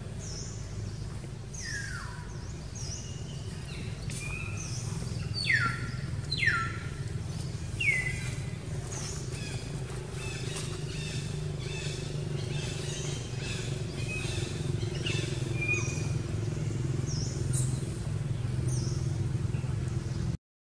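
Birds chirping repeatedly, with a few loud high calls that fall sharply in pitch, over a steady low hum.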